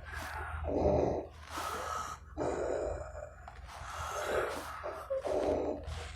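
A man snoring heavily in his sleep, with rasping, snorting breaths in and out about once a second. The breathing sounds like a scuba diver breathing through diving equipment.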